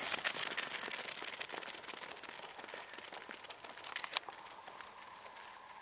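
Quick crunching footfalls of a dog running on a fine gravel path, growing fainter as it gets farther away, with a couple of sharper clicks about four seconds in.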